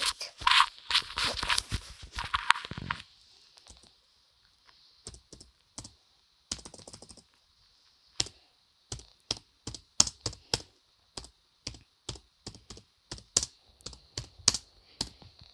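Typing on a laptop keyboard: a run of short, irregular keystroke clicks. About three seconds of louder rustling handling noise comes first.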